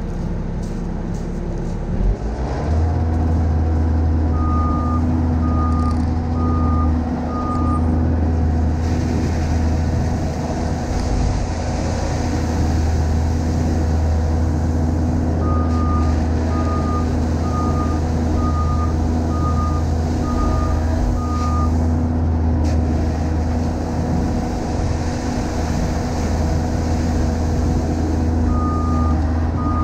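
Heavy equipment diesel engine stepping up to high revs about two seconds in and running steadily, with its backup alarm beeping in three runs as the machine moves.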